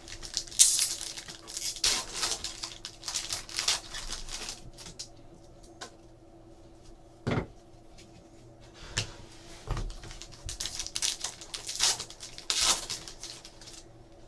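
Trading card packs being torn open and cards handled: short crinkly wrapper rips and card-shuffling rustles in two flurries, with a couple of soft knocks in the quiet middle stretch.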